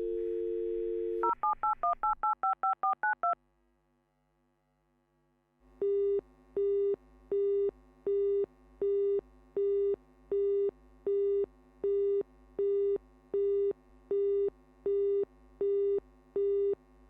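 Telephone line sound effect: a steady dial tone, then about ten quick touch-tone (DTMF) keypresses as a number is dialed, a pause of about two seconds, then a busy signal beeping about twice a second.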